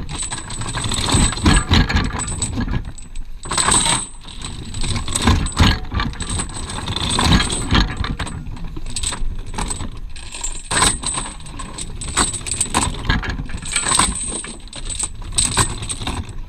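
Anchor chain clattering and clanking irregularly as the barge's anchor is let go, a dense run of loud metallic clinks that stops abruptly.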